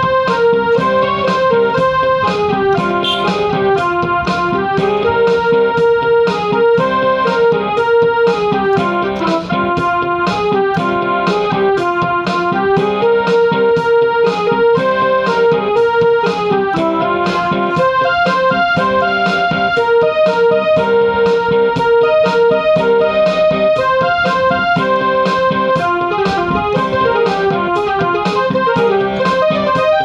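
Background music: a keyboard melody stepping up and down over held chords and a steady beat.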